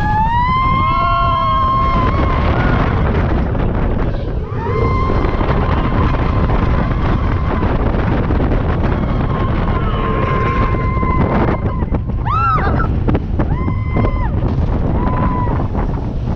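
Wind rushing over the microphone on a moving roller coaster, with riders screaming and whooping several times over the rumble.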